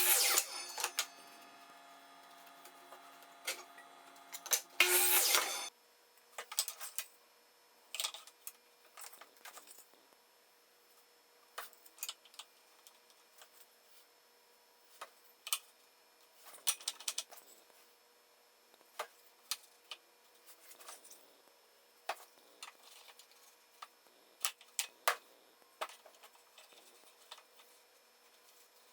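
Woodshop bench work: a machine hum and a short loud burst of noise that cut off about five and a half seconds in, then scattered clicks and knocks of wood pieces and hand tools being handled and set down.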